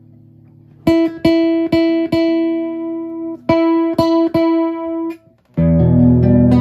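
Nylon-string electric guitar played through a CoolMusic BP80 portable amplifier with its chorus effect on. After a quiet first second, a short run of single plucked notes, several left to ring, gives way about five and a half seconds in to louder, fuller chordal playing.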